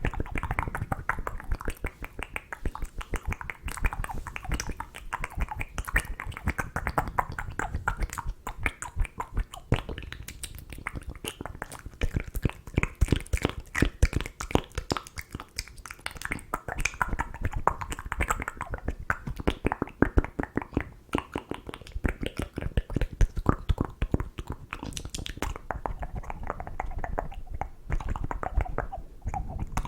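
ASMR mouth sounds close to the microphone: a rapid, continuous run of wet tongue clicks, lip smacks and pops, several a second.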